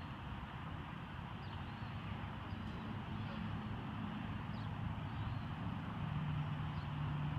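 Disturbed honeybee swarm buzzing in a steady hum around a freshly cut branch covered in bees, with a few faint high chirps over it.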